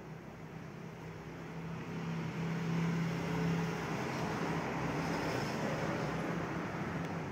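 A vehicle engine running with a low steady hum, getting louder over the first three seconds and then holding steady.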